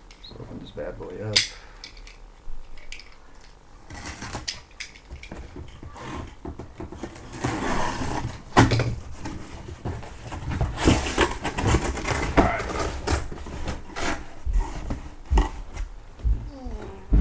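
A cardboard shipping case being opened: a box cutter scraping through packing tape, and the cardboard flaps rustling and rubbing, with scattered knocks and one sharp knock about halfway through.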